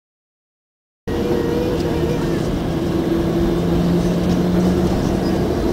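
Boeing 737-800's CFM56 turbofan engines at taxi power, heard from inside the cabin as a steady hum over a low rumble. It starts suddenly about a second in.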